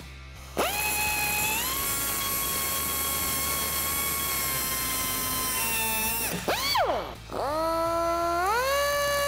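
Air-powered cutoff tool whining at high speed as its abrasive wheel grinds the protruding tops of strut-mount studs flush. About six seconds in the whine falls away as the trigger is released, then the tool spins up again twice, its pitch climbing in steps near the end.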